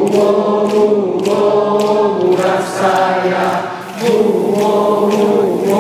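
A group of people singing a chant together in long held notes, with hand claps.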